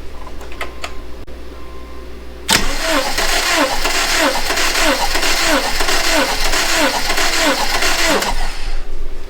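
Subaru Outback flat-four engine cranked over by its starter with the spark plugs removed for a compression test, not firing. The cranking starts about two and a half seconds in, pulses evenly about twice a second, and stops after about six seconds.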